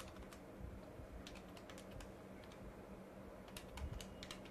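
Faint, irregular light clicks of keys being tapped, in small runs with short gaps, over a low steady hum.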